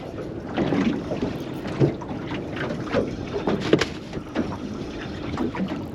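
Water splashing and knocking against the hull of a small fishing boat, in irregular slaps.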